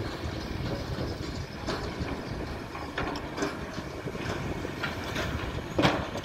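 Long-reach Kobelco excavator's diesel engine running with scattered metallic clanks and knocks as it works the bucket, and a louder clank near the end. A dump truck's engine runs alongside.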